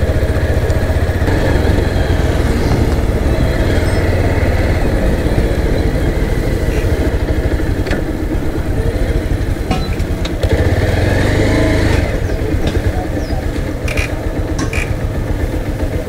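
Motorcycle engine running as the bike is ridden slowly, with wind and road noise on the rider's camera. The engine eases off about eight seconds in, picks up again around ten seconds, then runs lower and less evenly near the end as the bike pulls in and stops.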